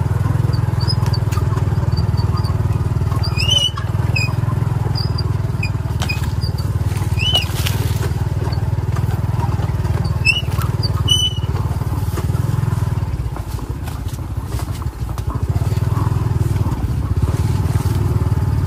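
A vehicle's engine running steadily on the move, with a brief easing about two-thirds of the way through. A few short high chirps or squeaks come through in the first half.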